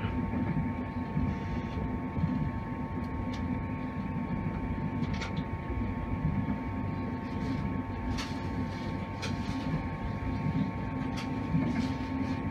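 Inside a passenger coach of a Class 91-hauled electric train on the move: a steady rumble of wheels on rail with a constant hum and a few sharp clicks from the track now and then.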